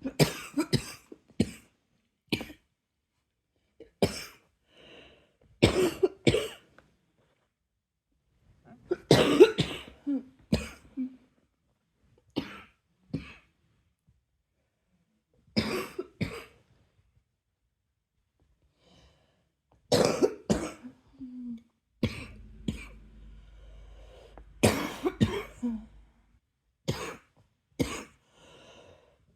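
A person coughing in repeated bouts: short clusters of two or three hard coughs every few seconds, with brief pauses between them.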